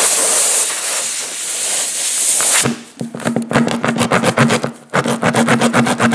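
Air hissing steadily out of a freshly reamed puncture hole in a tire. About two and a half seconds in, the hiss stops and a machine starts with a rapid, even rattle over a low hum. The machine cuts out briefly near the end and starts again.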